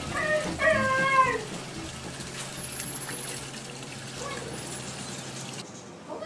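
Canada goose giving two short nasal calls in the first second and a half, then water lapping quietly in a bathtub with a low steady hum.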